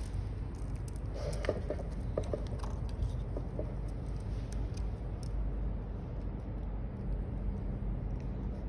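A few short clicks and small squeaks of an item and its packaging being handled, clustered between about one and three and a half seconds in, over a steady low rumble.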